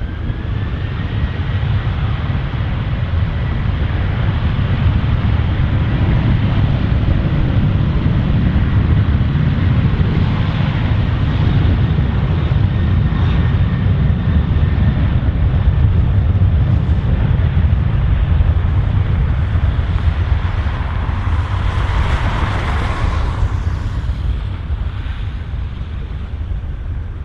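Boeing 737-800's CFM56 turbofan engines at takeoff thrust on the takeoff roll: a loud, steady low rumble with a thin fan whine over it in the first half, swelling over the first few seconds and easing near the end as the jet pulls away.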